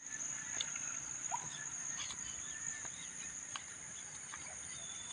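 Crickets trilling steadily at a high pitch, with a few short chirps scattered through.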